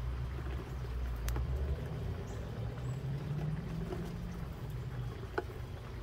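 Steady low outdoor rumble, with two sharp ticks, one just over a second in and another near the end.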